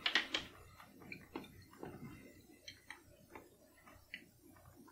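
Faint, scattered light clicks and taps as small quail eggs are picked up and handled on a plate.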